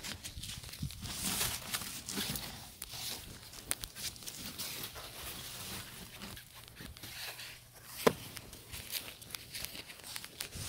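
Bristles of a snow brush sweeping snow off a car in repeated scraping strokes, with a single sharp click about eight seconds in.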